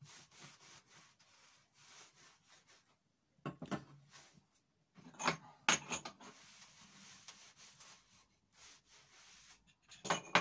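Cloth rubbing and wiping over a wooden workbench, with a few sharp metallic knocks and clinks as a steel flat bar is handled and set on the bench: one about a third of the way in, two close together around the middle, and more at the very end.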